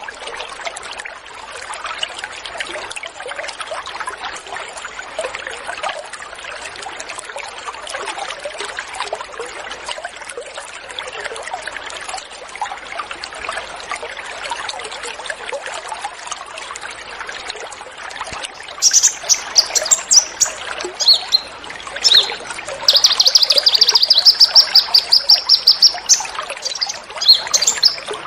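Steady trickle of running water. About two-thirds of the way in, small songbirds start calling over it with sharp high chirps, then a fast trill of rapid high notes lasting a few seconds, followed by more scattered chirps.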